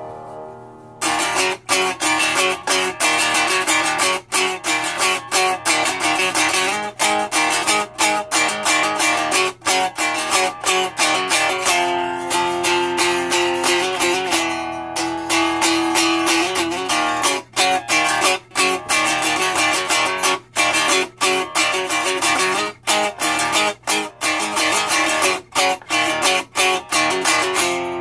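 Cigar box guitar played unplugged: a chord rings and fades, then about a second in a driving blues riff starts, quick picked and strummed notes with a couple of held notes midway.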